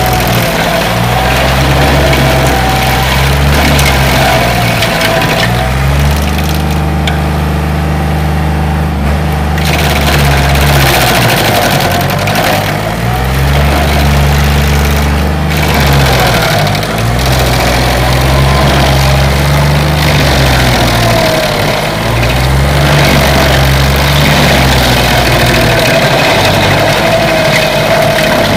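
Stump grinder's engine running hard, its note dipping and recovering every few seconds as the cutting wheel grinds into the tree stump.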